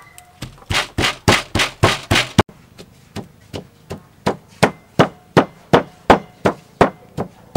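Wooden pestle pounding red chillies in a wooden mortar: a steady run of knocks, about three a second.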